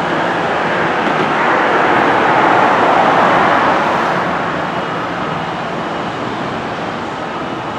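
A passing vehicle: a steady rush of noise that swells to a peak about three seconds in and then fades.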